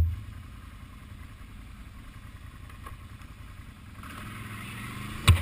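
ATV engine running at low speed on a rough trail, a steady low rumble with rising wind and road noise in the second half, and a sharp knock of the machine jolting over a bump near the end.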